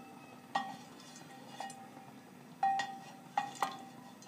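Wooden ladle knocking against the rim and sides of an aluminium cooking pot while scooping boiled chicken out of the stock. About six sharp knocks, some in quick pairs, each leaving a short metallic ring from the pot.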